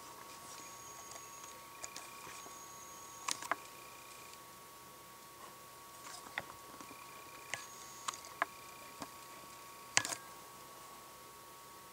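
Irregular sharp pops and clicks of carbon dioxide from an actively fermenting imperial stout bubbling through a blow-off hose and airlock, over a faint steady hum. Several brief thin high tones come and go, and the loudest pop comes near the end.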